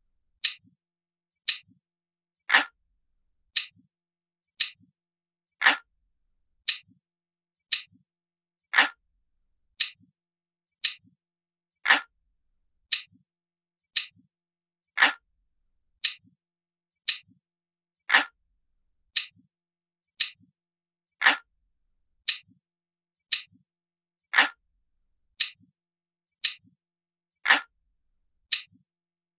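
A glass-like clock ticking sound, one crisp tick about every second, with every third tick a little heavier.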